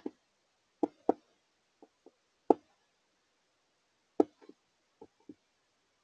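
Irregular sharp taps of a Carolina wren's bill pecking at seed on a clear plastic feeder tray, about a dozen in all. The loudest come about a second in, two and a half seconds in and four seconds in.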